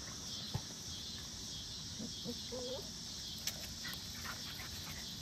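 Steady high-pitched chirring of insects in the yard, with a few faint taps and a brief faint squeak about two seconds in.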